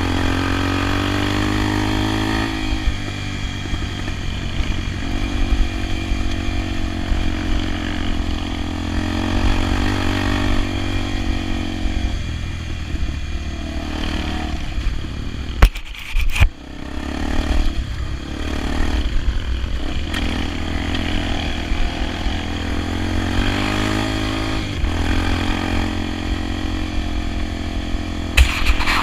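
Honda XR 250 Tornado's single-cylinder four-stroke engine running under way, its pitch climbing several times and dropping back as it is revved through the gears. A few sharp knocks come about halfway through.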